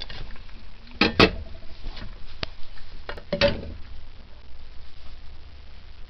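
Metal cookware clattering on a gas stove: a pot lid and steamer plate knocked and set down, with two loud clanks about a second in and around three and a half seconds, the second ringing briefly. A steady low rumble runs underneath.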